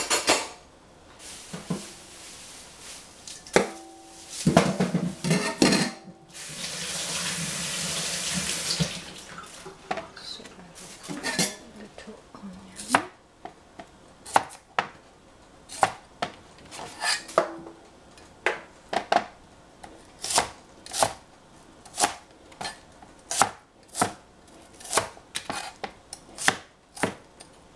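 A kitchen tap runs for about three seconds, then a cleaver cuts an onion into wedges on a plastic cutting board: sharp knocks of the blade on the board, about two a second, through the second half.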